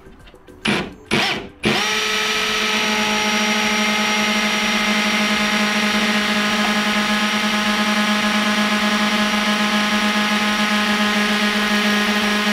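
Ryobi R18PDBL-0 18V brushless hammer drill in hammer mode, boring a small bit into a rock. A few short bursts about a second in, then steady drilling at an even pitch.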